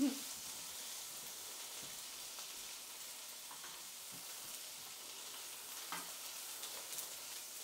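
Ribeye steak frying in hot oil in a pan, a steady sizzle, with a couple of faint clicks near the end.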